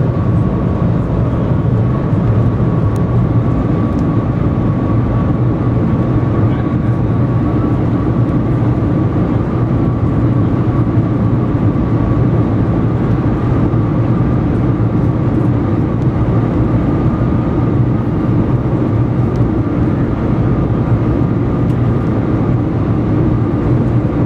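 Loud, steady rumble inside the cabin of the Shanghai Maglev train running at over 400 km/h, with a thin whine that edges up slightly in pitch as the train accelerates toward 430 km/h.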